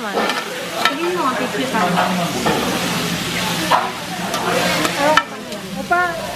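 Dakgalbi (spicy chicken with cabbage and rice cakes) sizzling on a large round iron pan while spatulas stir and toss it, with a steady hiss and a few sharp scrapes and clacks of the spatulas against the pan.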